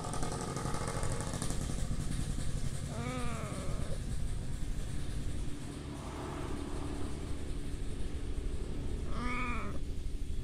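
A kitten with a severe fungal skin infection meows twice, about three seconds in and again near the end. Each is a short call that rises and then falls in pitch.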